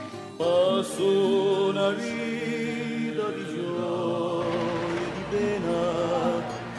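Background music: a song with a singing voice that comes in about half a second in, held notes with a wavering vibrato over a sustained accompaniment.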